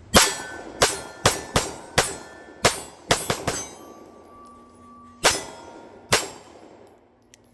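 A string of about eleven pistol shots fired at an uneven pace, mostly in the first three and a half seconds with two more later, each with a sharp metallic ring after it.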